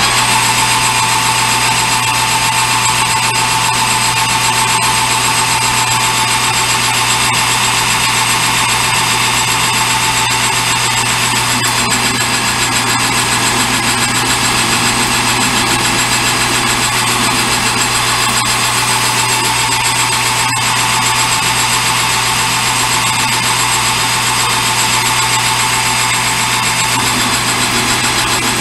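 Metal lathe running steadily while taking a turning cut of a little over 30 thousandths to round the stock: a constant motor hum with a steady higher tone from the cut that fades out near the end.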